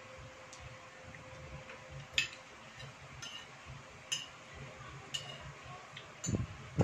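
Metal fork and spoon clinking against a ceramic plate while eating: about six sharp, short clinks roughly a second apart, the loudest a little over two seconds in, over a low steady background rumble.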